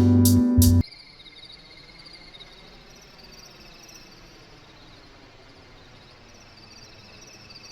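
Guitar music cuts off abruptly about a second in, leaving faint cricket chirping in quick repeated pulses.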